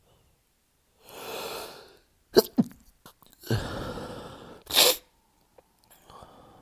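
A man's stifled sneezes: a drawn-in breath, a sharp held-back sneeze, another long breath in and a second stifled sneeze, then faint breathing.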